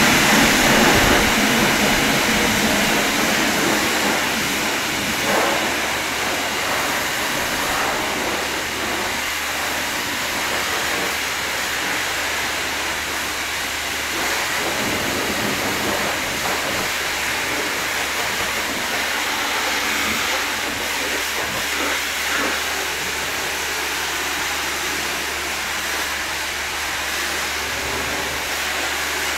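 High-pressure car-wash spray wand blasting water onto a car's bodywork: a steady, loud hiss.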